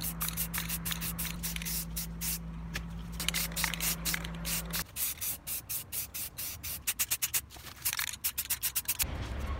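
An aerosol spray-paint can hissing in many short bursts in quick succession, laying green paint on a wooden croquet stand. A steady low hum underneath cuts off abruptly about halfway through.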